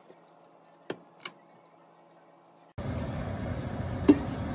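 Two light clinks from the steel pot and colander in the sink, then, about three seconds in, a metal potato masher working soft boiled potatoes in a steel pot, a steady squishing with one sharp knock of the masher against the pot.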